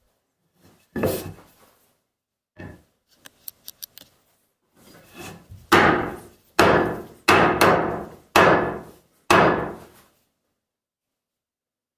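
Steel hatchet made from a saw blade chopping into a wooden log: one strike about a second in, a lighter one and a few small clicks, then five heavy chops in a steady rhythm, about one every 0.8 seconds, stopping about ten seconds in.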